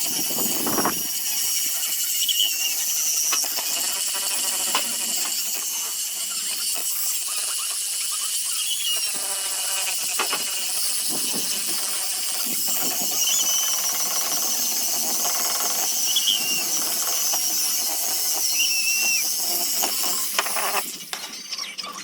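Sandpaper sanding a zelkova wood basket: a steady, continuous scratchy hiss, with brief high squeaks now and then.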